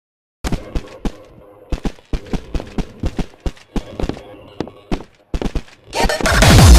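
A quick, irregular series of sharp percussive knocks and thumps, then a rising sweep about six seconds in that leads straight into loud electronic dance music with a heavy beat.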